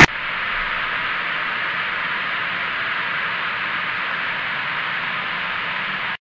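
Steady hiss of television static, cutting off suddenly near the end.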